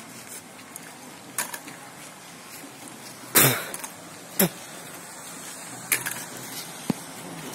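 Aluminium folding walker being lifted and set down on dirt step by step, its metal frame giving a few irregular clanks and knocks, the loudest about three and a half seconds in.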